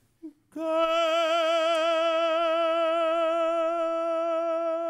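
A tenor singing one long held note on the word "Gelt" with a steady vibrato. It is attacked forte and slowly grows softer in a diminuendo.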